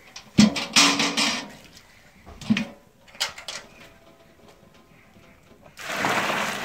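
A few knocks and a short splash as the strained pine-cone liquid is handled in a basin, then from about six seconds a steady rush like liquid pouring. Faint plucked-string music runs underneath.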